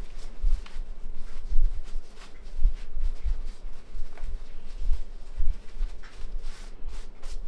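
Muffled low thumps with faint rustling: apron fabric being handled and tied close to the microphone.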